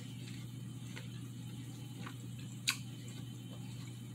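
Quiet eating sounds while apple pieces are eaten: a couple of faint mouth clicks and one sharper smack about two and a half seconds in, over a steady low hum.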